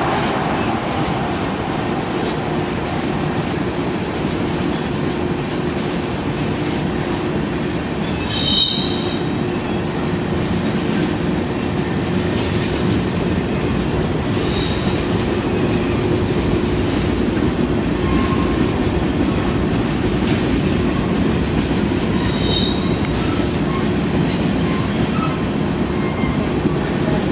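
Freight train of tank cars and covered hoppers rolling past, a steady rumble of steel wheels on rail. Brief high wheel squeals cut in about a third of the way through and twice more later.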